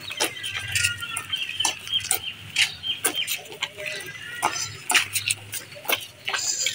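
Footsteps of several people walking in sandals on a dirt lane, the soles slapping in an uneven patter, with birds chirping in the background.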